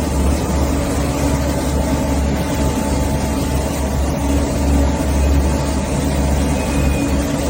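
Pressure washer running steadily: a motor's low drone with the hiss of the water jet over it.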